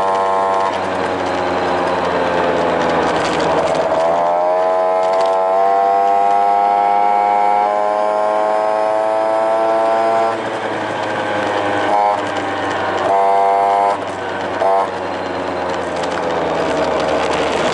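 Honda Tact AF24 scooter's small two-stroke engine running on the road, loud through its newly fitted aftermarket air cleaner. The engine note climbs as it speeds up about four seconds in, holds steady, then falls back around ten seconds in, with short bursts of throttle twice near the end.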